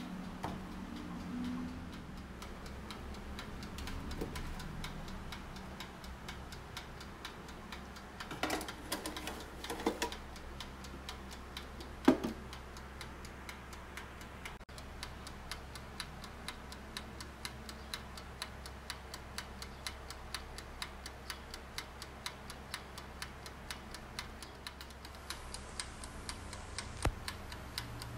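Toaster oven's mechanical timer ticking steadily and rapidly over a low, steady hum. A few knocks and one sharp clack come around the middle.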